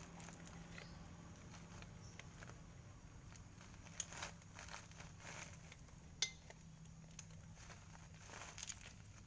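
Faint, scattered clinks and taps of metal parts and tools being handled, the sharpest about four and six seconds in, over a faint steady low hum.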